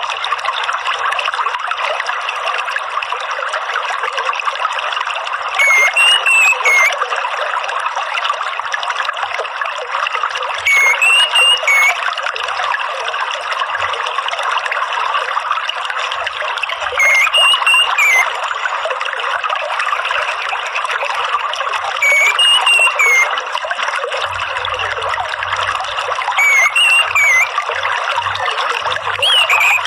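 Water trickling steadily, with a short whistled call from an orange-headed thrush about every five seconds, each lasting about a second.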